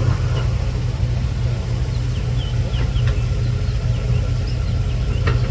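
Heavy diesel engine running steadily with a low, even drone, idling or at low load.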